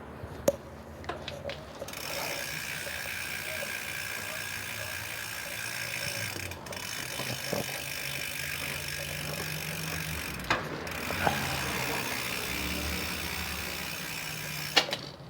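Novatec rear hub freewheeling as the rear wheel is spun by hand: a fast, continuous ratchet buzz of the freehub pawls. There are a few knocks of handling near the start and again about ten seconds in.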